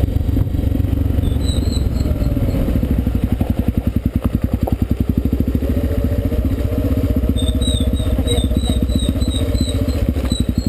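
Honda XR 250 Tornado's air-cooled single-cylinder four-stroke engine running; after about three seconds it settles into an even, rapid pulse, as at low revs. A repeated high chirping sounds over it briefly near the start and again through the second half.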